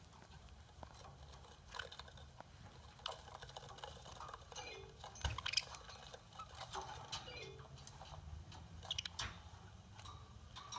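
A budgie tapping and pecking at an iPad screen with its beak, scattered light clicks and taps, with a few short budgie chirps in between, over a faint steady hum.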